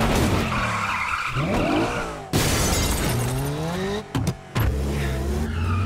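Car and motorcycle engines revving up and down over skidding tyres, with a loud crash about two seconds in. A brief lull with a couple of short clicks follows, then an engine settles to a steady note.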